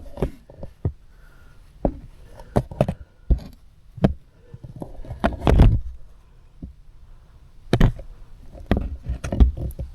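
Handling noise from a handheld camera pushed into an opening: irregular knocks and scrapes, spaced unevenly, the loudest about five and a half seconds in.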